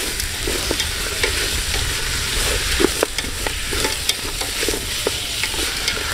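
Chicken sizzling as it is stir-fried in a pot, with a utensil clicking and scraping against the pot several times a second over a low, steady rumble.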